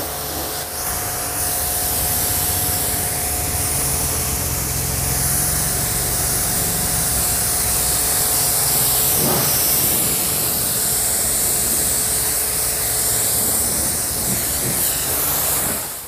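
STARQ ST W4 PRO electric pressure washer's jet spraying steadily onto a car's body and glass, with a faint steady whine underneath from the running machine. The sound fades out near the end.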